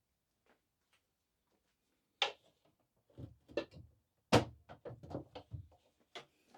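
Clicks and knocks of parts and tools being handled while an electric stove is taken apart. There is one sharp knock about two seconds in, a quick run of knocks from about three to six seconds in, and a last click near the end.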